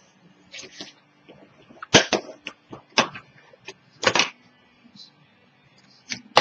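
Handling noises from paper crafting: sharp taps and short scratchy scrapes as chipboard pieces and tape strips are set down and pressed onto a cutting mat, loudest about two, three and four seconds in, with lighter clicks between.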